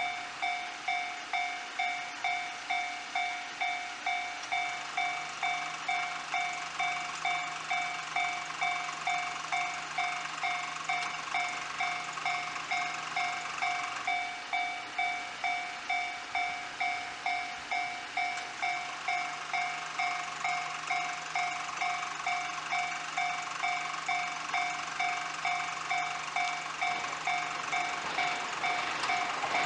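Japanese railway level-crossing warning alarm ringing in an even, repeating ding, a little under two strikes a second, signalling an approaching train. Near the end the noise of the oncoming train begins to rise under it.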